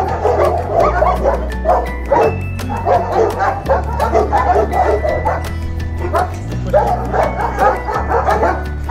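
Many kennelled dogs barking together in dense, overlapping bursts, set off by strangers coming in among them. Background music with a steady bass line runs under the barking.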